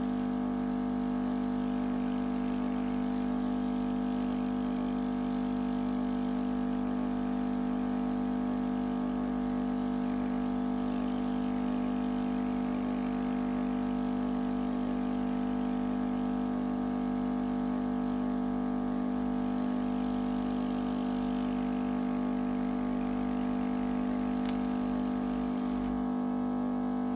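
Hot air rework station's blower running with a steady, unchanging hum while the damaged charge port is desoldered.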